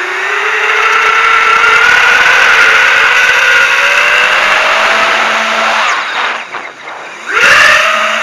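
FPV quadcopter's brushless motors and propellers whining, the pitch climbing slowly. About six seconds in the throttle drops off and the whine falls away briefly, then it punches back up sharply near the end.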